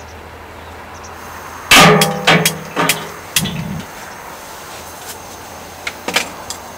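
Metal utensils clanging on the iron cauldron-lid griddle: one loud clang with a brief ring about two seconds in, then several lighter clinks and knocks, over a steady low rumble.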